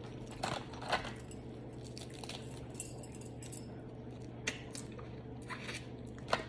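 Aluminium foil crinkling and crab-leg shells clicking as gloved hands pick through air-fried crab legs in a foil-lined dish. There are a handful of short, sharp crackles over a steady low hum.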